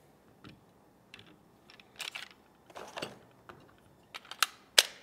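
Smith & Wesson M&P Shield 9mm pistol and its magazine being handled: a run of scattered plastic-and-metal clicks and clacks, with a few sharp clicks near the end as the magazine meets the grip, the last one the loudest.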